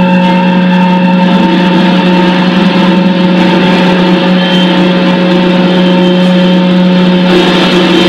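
Amplified prepared guitar and bass guitar in free-improvised noise: a loud, steady low drone with a few held higher tones over a harsh wash of noise, growing a little brighter near the end.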